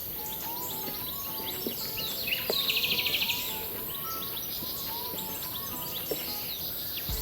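Many birds chirping and whistling over a steady high insect hiss, with a rapid pulsing trill lasting about a second, starting about two and a half seconds in.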